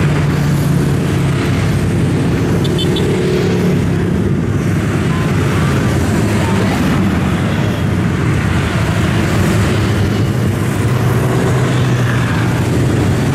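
Heavy road traffic, mostly motorcycles, streaming past with engines running in a steady, unbroken din.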